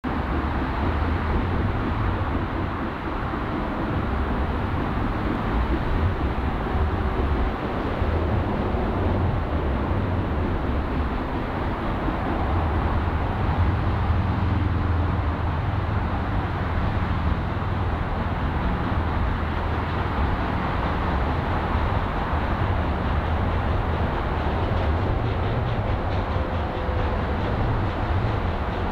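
Steam locomotive Granite Rock No. 10, a 0-6-0 saddle tank, approaching out of sight: a steady low rumble, with faint quick beats coming through near the end.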